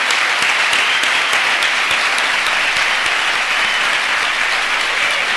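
An audience applauding, steady dense clapping.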